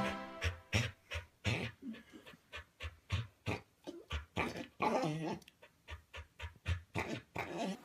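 Quick breathy huffs repeating irregularly, about two or three a second, a few with a short voiced edge: an animal panting.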